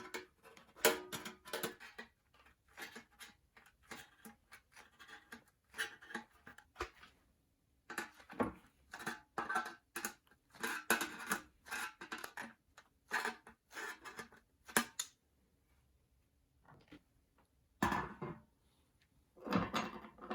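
Thin stainless steel trays being worked by hand with tools: irregular short metallic clicks, snips and clanks, some ringing briefly.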